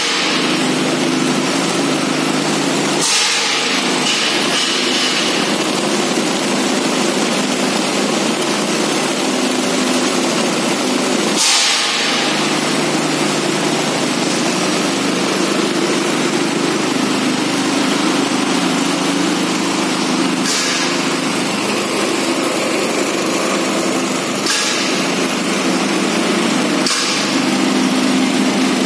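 Flexible screw conveyor running: its drive motor hums steadily while granules hiss through the spiral inside the tube and drop out at the discharge chute. A few brief louder rushes of hiss break in, about three seconds in, near the middle and later on.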